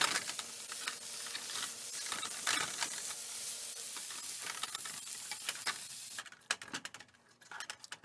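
Lean ground turkey sizzling in a nonstick frying pan while a spatula breaks it up, with short scrapes and taps against the pan. About six seconds in the sizzle cuts off suddenly, leaving a few quieter clicks.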